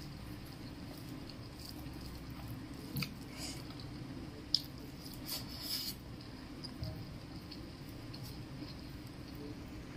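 Eating by hand: fingers squishing and mixing rice with chicken liver and gizzard curry on a plate, and chewing with a full mouth. A few short sharp clicks and smacks come about three, four and a half and five and a half seconds in, over a steady low hum.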